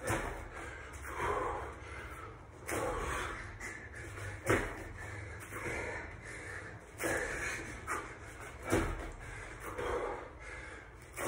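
A man breathing hard during a bodyweight exercise, with a loud exhale about every second in time with his reps. Two sharp thuds of hands or feet landing on the floor mat stand out, about four and a half seconds in and again near the end.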